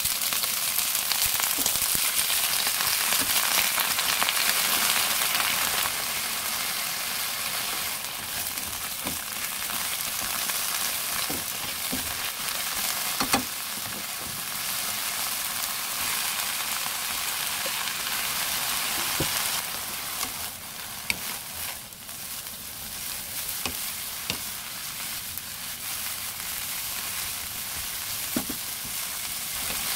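Spinach sizzling in hot oil in a nonstick wok, with now and then a sharp knock of a wooden spatula on the pan as it is stirred. The sizzle softens a little about six seconds in and again near the end.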